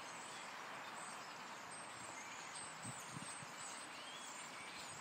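A large flock of birds calling together in the trees: a faint, steady din of many voices with thin, high chirps over it.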